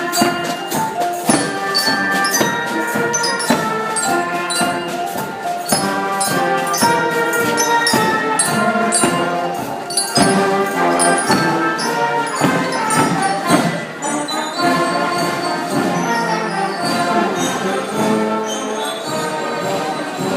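Music played by brass and percussion, with held notes over a steady beat.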